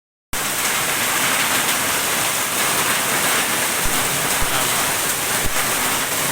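Heavy rain pouring down: a loud, dense, steady hiss that starts a moment in, with a few brief sharp taps a little past the middle.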